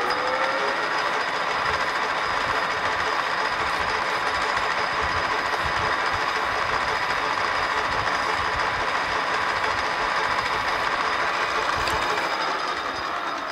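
Metal lathe running steadily with a whine and gear noise while a hand file is held against the spinning aluminium cylinder-head casting. The lathe is still coming up to speed in the first second, and near the end it begins to run down.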